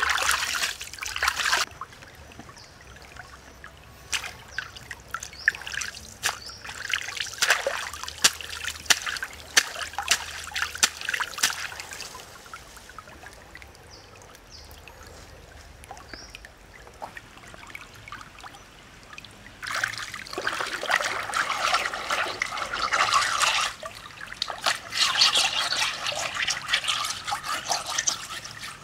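Shallow stream trickling, with bouts of louder splashing and sloshing; the last bout, in the final seconds, comes as a flat stone is scrubbed by hand in the water.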